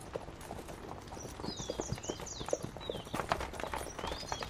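Several horses walking, their hooves clip-clopping in an uneven run of knocks, with high chirps above.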